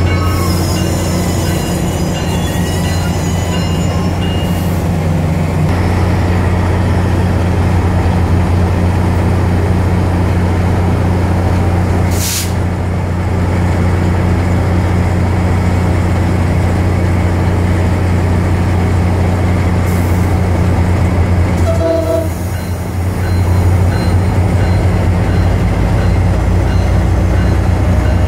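MARC commuter train's diesel locomotive running with a steady low drone as the train slows and stands at the platform. A short hiss comes about twelve seconds in.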